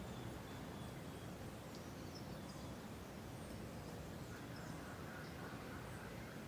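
Faint short bird chirps, several between about one and four and a half seconds in, over a steady background hiss and low rumble of outdoor ambience.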